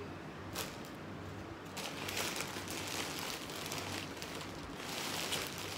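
Soft rustling of clothing and packaging as garments are handled: a light tap about half a second in, then a few seconds of rustling that fades just before the end.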